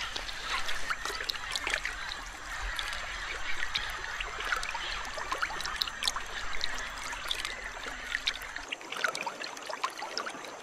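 Shallow river water trickling and lapping, with many small drips and splashes, as a green anaconda moves through it.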